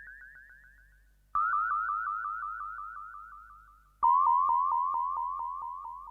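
Synthesized electronic sound effect: a rapid pulse of short upward-sweeping blips, about seven a second. The pulsing starts afresh twice, about a second and a half in and near the middle, each time a little lower in pitch and fading away.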